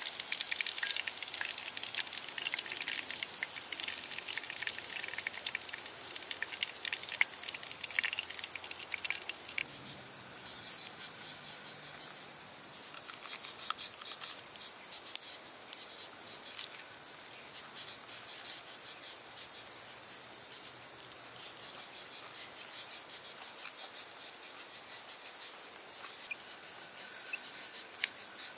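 Insects chirring steadily in a high, finely pulsing drone. A few crisp crunches come around the middle as a fried fish-paste stick is bitten.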